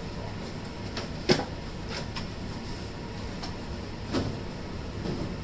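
Food containers and packages knocking and clunking as they are set onto refrigerator shelves: a few light clicks, a sharp knock about a second in, and a duller clunk about four seconds in.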